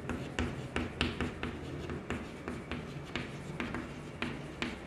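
Chalk writing on a blackboard: irregular quick taps and short scratches as the chalk forms letters, a few strokes each second.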